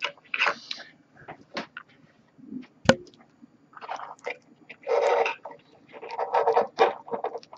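Small plastic figure parts clicking, rubbing and scraping in the hands as a blade accessory is worked onto a peg that won't seat, with one sharp click about three seconds in.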